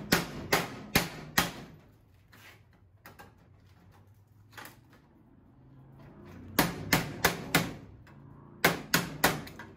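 A hammer striking a screwdriver driven into a vending machine's door lock, to knock loose a piece of the lock cylinder still stuck in the door. Four sharp strikes come quickly at the start, then a few light taps, then two more quick runs of about four strikes near the end.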